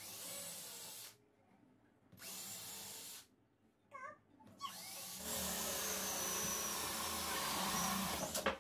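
DeWalt 18V cordless drill boring into MDF in two short runs of about a second each. From about five seconds in it runs steadily for about three seconds, driving a round disc attachment against the MDF top.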